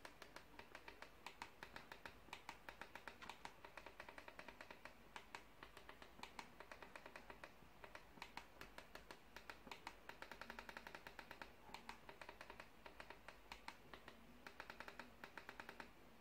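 Faint, quick clicking of a set-top-box remote control's buttons, several presses a second with short pauses, as the cursor is stepped across an on-screen keyboard to type a name letter by letter.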